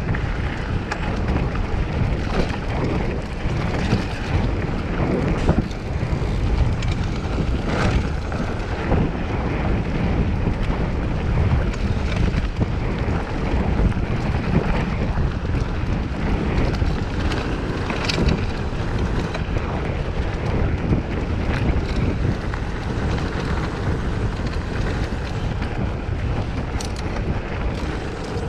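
Wind buffeting the camera microphone as a mountain bike rolls fast downhill on a dirt trail, over the rumble of knobby tyres on dirt. Occasional sharp clicks and rattles come from the bike over bumps.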